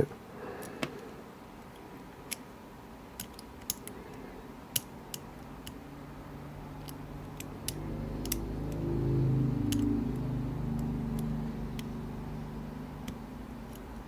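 Lock pick and tension wrench working the pins inside an Illinois Duo padlock: scattered light metallic clicks and ticks, a dozen or so spread irregularly. A low hum swells in the second half and fades again.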